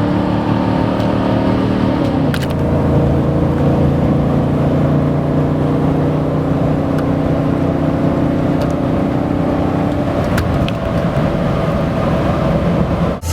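Muffler-less exhaust of a 2004 Chevy Silverado 2500HD's 8.1-litre big-block V8, through a Y-pipe and a 5-inch tip, running loud and steady. Its pitch drops about two seconds in, then holds until it turns rougher near the end.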